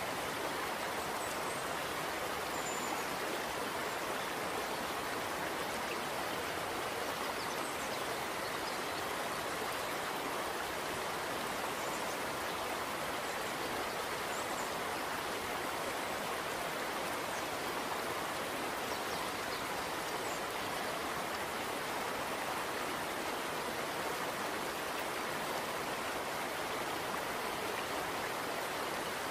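A thin stream of cold 95% ethanol trickling steadily into a beaker of strawberry extract, an even, unbroken splashing trickle. It is being poured to precipitate the DNA.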